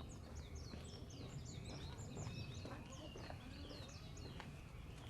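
Small birds chirping: many short, high calls that each slide downward, overlapping throughout, over a steady low background rumble.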